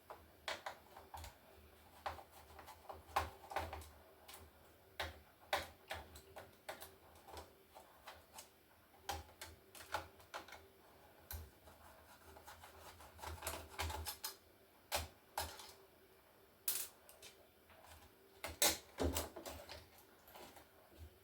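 Irregular clicks, taps and light knocks of plastic and metal laptop parts being handled and unscrewed during disassembly, with a louder cluster of clicks near the end.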